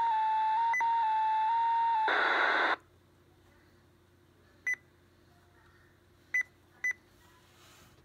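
Two-tone alarm received over MURS channel 5 (154.600 MHz) and heard through a RadioShack PRO-2055 scanner's speaker: a steady tone stepping back and forth between two close pitches a couple of times a second. The uploader suspects it is a weather alert from a school or other facility. About two seconds in it ends in a short burst of static as the transmission drops, and three short high beeps follow, the last two close together.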